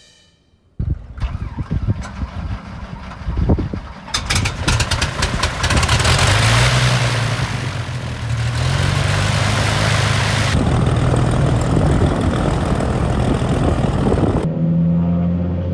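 Cessna 340A's twin turbocharged Continental TSIO-520 piston engines running, uneven at first, then a louder steady drone that rises in pitch as power comes up. The sound changes abruptly about ten seconds in and again near the end.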